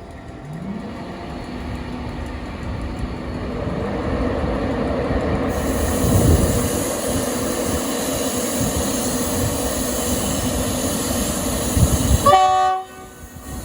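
Train passing at speed, its rumble and rail noise building up and then holding steady. Near the end a short horn note sounds, and then the noise drops away abruptly.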